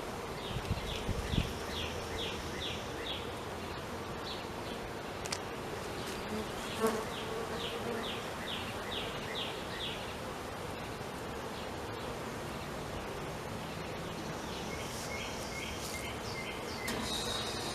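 Honeybees buzzing around an open hive, a steady hum. Over it come several runs of short high chirps, about three a second.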